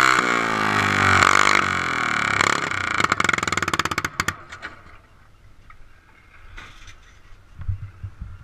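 Pulling garden tractor's engine, an IH Cub Cadet, winding down from high revs with a falling pitch, popping and sputtering, and stopping about four seconds in. A few low thumps follow near the end.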